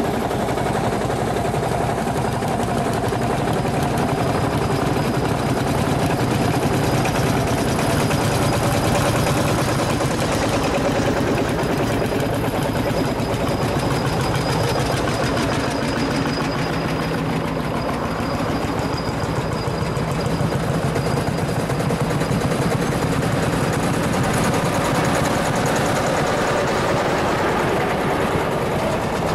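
Vintage single-cylinder diesel tractors, an Ursus and a Lanz Bulldog-type among them, running past one after another, their engines making a fast, regular beat.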